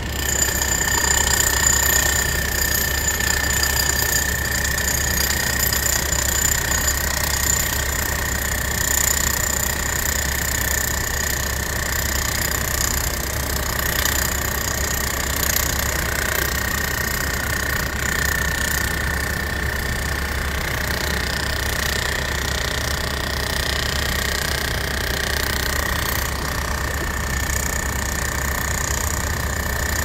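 Construction machinery diesel engines running steadily, with a steady high whine over the low engine hum.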